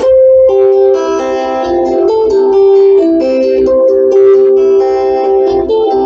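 Instrumental music led by guitar, a slow melody of held notes.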